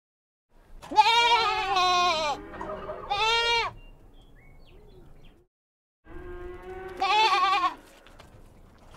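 Goats bleating: a long wavering bleat about a second in, a shorter one about two seconds later, and a softer call building into another loud bleat near the end.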